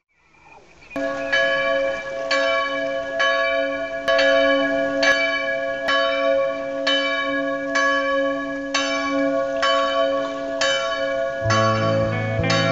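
A church bell tolling steadily, a little under one stroke a second, each stroke ringing on over a continuous hum. Near the end, bass-heavy guitar music comes in over it.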